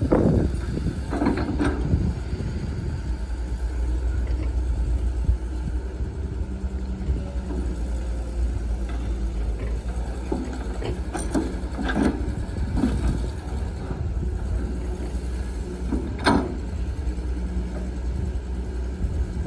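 Heavy diesel earthmoving machinery running steadily at a low pitch, with a few short, sharp metallic knocks.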